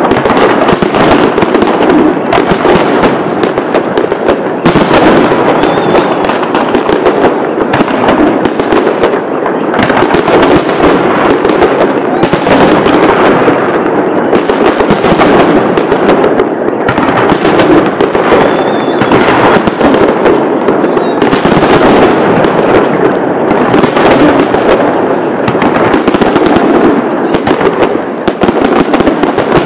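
Fireworks display: a continuous, very loud barrage of overlapping bangs and crackles with no pause, with a brief faint whistle twice.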